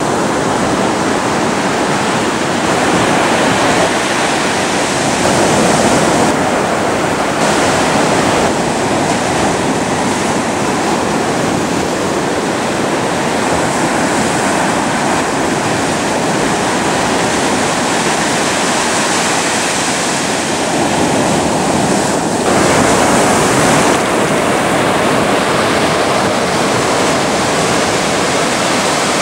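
Ocean surf breaking and washing ashore: a steady, dense rush of waves, changing abruptly in tone a few times.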